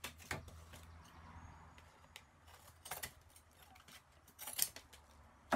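Scissors trimming overhanging paper strips from a glued paper collage: a few separate short snips, with paper rustling between them.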